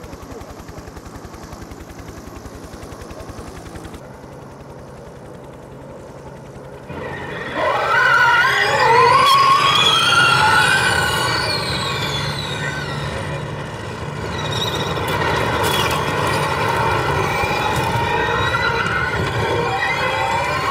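A field of Formula E electric race cars launching from a standing start, starting about seven seconds in after a quieter steady hum. Their electric motors and gearboxes whine in many overlapping pitches rising and falling.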